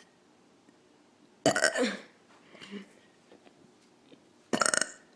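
A person burping twice, two loud burps about three seconds apart: the first about a second and a half in, lasting half a second, the second near the end, shorter.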